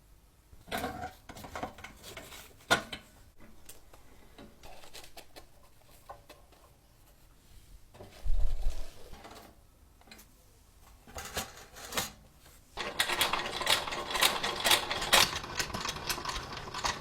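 Scattered mechanical clicks and knocks, a single low thump about halfway, then near the end a vintage film projector's mechanism starts a fast, steady clatter.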